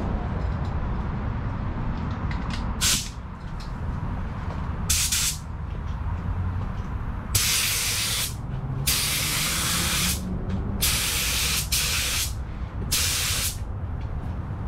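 Air spray gun spraying paint thinned with reducer in short trigger pulls: about seven bursts of hiss, the longer ones about a second each, over a steady low rumble.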